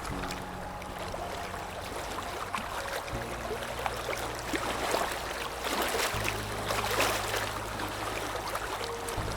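Sea waves washing and fizzing steadily, over a soft low sustained music pad whose chord changes about every three seconds.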